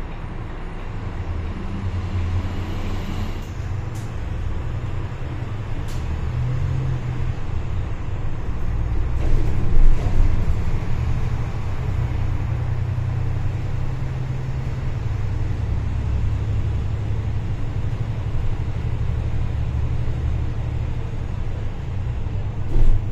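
City bus engine running and road noise while cruising, a steady low drone. A few sharp clicks sound in the first six seconds, and the noise swells briefly around ten seconds in.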